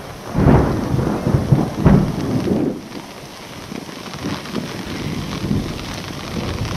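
Rain falling steadily on a lake, with a roll of thunder in the first three seconds that swells twice, about half a second and two seconds in, then dies away under the rain.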